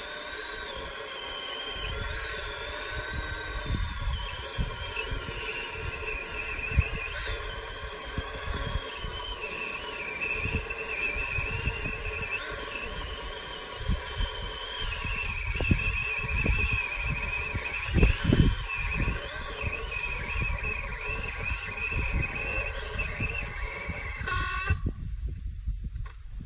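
DeWalt 20-volt brushless battery chainsaw running as it cuts the top out of a birch tree, its high whine wavering and sagging lower for long stretches. Knocks and thumps come along the way, the loudest about 18 seconds in, and the saw cuts off abruptly near the end.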